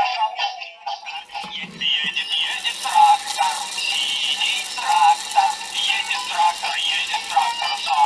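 Tinny electronic children's song with a synthesized singing voice, played through a toy tractor's small built-in sound-module speaker, thin with no bass.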